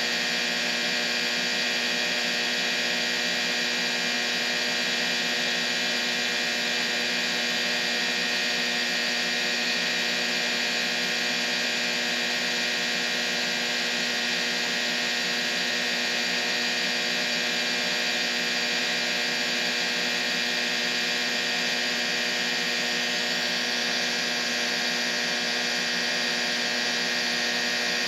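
Steady hum with hiss: a dense, unchanging noise carrying many held tones at once, with no low rumble.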